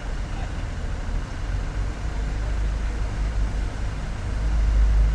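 Low rumble of a Northern Ireland Railways CAF Class 4000 diesel multiple unit running as it pulls towards the level crossing, growing louder about four and a half seconds in.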